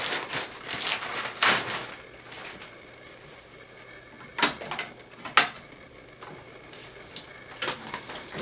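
Plastic packaging crinkling as a peritoneal dialysis cassette is pulled from its bag. Then come two sharp clicks about a second apart as the dialysis cycler's cassette door is opened, and a few lighter clicks near the end as the cassette is handled at the machine.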